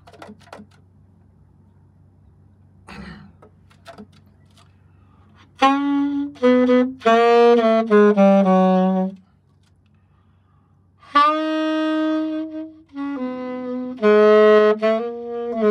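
Yamaha YAS-280 alto saxophone played solo. After a few quiet seconds comes a phrase of notes stepping downward, then a pause, a long held note, and further phrases running on at the end.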